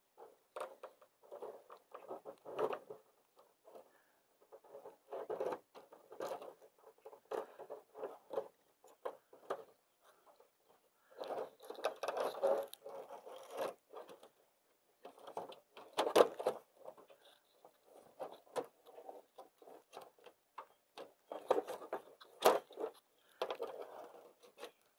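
Aluminium micromesh gutter guard scraping and rattling against asphalt shingles and the gutter lip as it is worked into place under the shingle edge. It comes in irregular bursts of scraping with a few sharp clicks.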